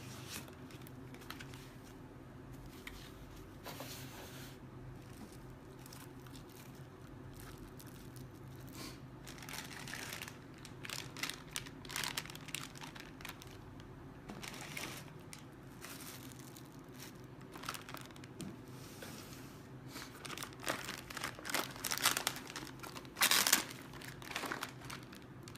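Packaging being handled and unwrapped by hand: crinkling and tearing in irregular bursts that grow busier in the second half and are loudest near the end, over a steady low hum.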